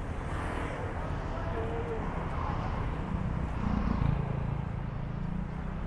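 Street traffic with engines running, and a motor scooter passing close about four seconds in, the loudest moment. People's voices in the background.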